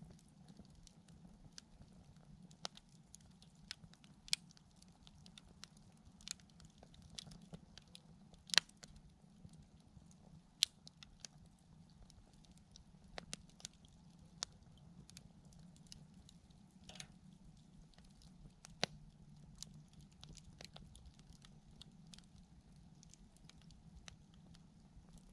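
Campfire firewood crackling: irregular sharp pops and snaps over a faint low background, with a few louder snaps near the middle.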